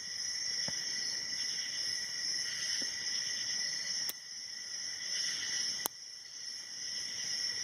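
Steady high-pitched chirring of crickets in the background, with a few faint sharp clicks from a hook pick and tension wrench working the pins of a brass padlock.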